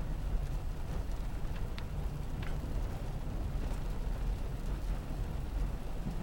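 Steady low rumble of a car's engine and tyres heard from inside the cabin while driving slowly on a snow- and ice-covered road, with a few faint ticks.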